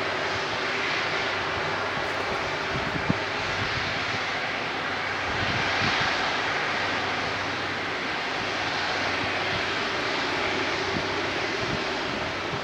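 Airbus A330 airliner's jet engines running: a steady rushing noise over a low steady hum, swelling about six seconds in. A single sharp click about three seconds in.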